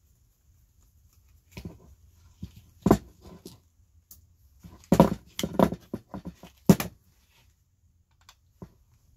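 Screwdriver working at a plastic part of a Nespresso pod coffee machine: an irregular string of sharp clicks, creaks and knocks, the loudest about three seconds in and a dense run of them between about five and seven seconds.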